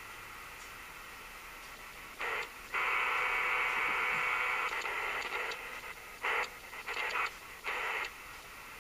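Static hissing from the small speaker of a kit-built AM/FM radio as its tuning dial is turned on the AM band. The hiss swells louder for a few seconds and then comes in short bursts, with no station coming in.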